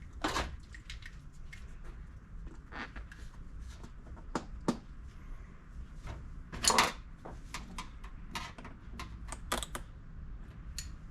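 Scattered light clicks and knocks of small carburetor parts and hand tools being handled, with a louder clatter about seven seconds in.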